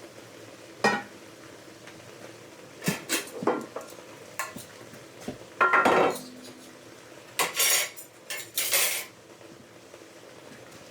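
Dishes, pots and cutlery being handled: irregular clinks, knocks and scrapes, with the loudest clatter in the second half.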